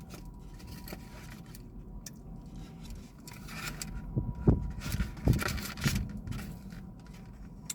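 Eating sounds: food and its wrapping handled with a few short scrapes and rustles between about four and six seconds in, over a steady low hum.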